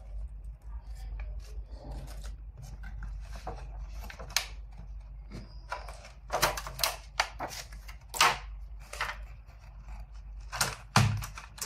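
Rustling of a folded paper manual, then crackling and crinkling of a clear plastic packaging cover as it is handled and lifted off the tray, with several louder crackles in the second half.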